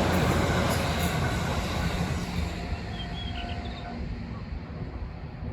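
JR Yamatoji Line electric train passing over a level crossing, its rumble fading steadily as it moves away.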